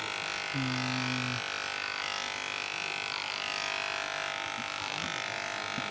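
Electric hair clipper running with a steady buzz while cutting hair.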